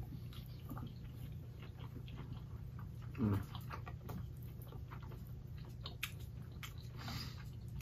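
Two people chewing mouthfuls of curry goat, with faint mouth noises and small clicks of plastic forks, over a low steady hum. A short voiced "mm" about three seconds in.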